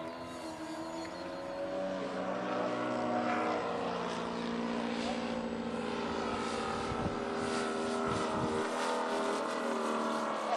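Radio-controlled model airplane's motor and propeller running in flight, a steady pitched whine with several tones whose pitch drifts slowly with throttle.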